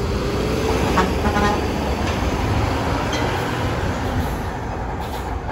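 Coach bus engine running low and steady as the bus drives down a ferry's steel loading ramp, with a brief high tone about a second in.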